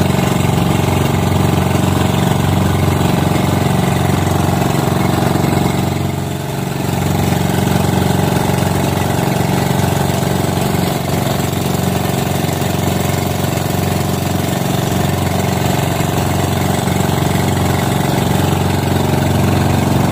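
Outrigger boat's engine running steadily at cruising speed while the boat is under way, dipping briefly about six seconds in.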